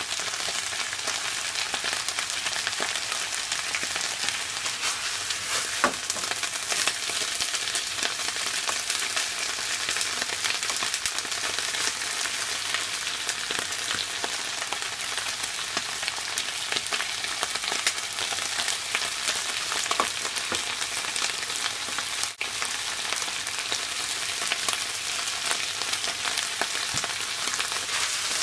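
Napa cabbage stir-frying in a hot pan: a steady sizzle as it is stirred, with a few sharp clicks.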